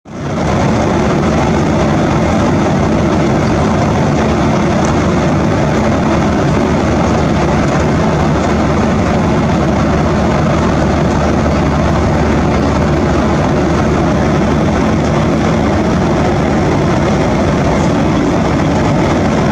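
Steady engine and airflow noise inside a jet airliner's cabin in cruise flight, with a faint low hum, fading in at the very start.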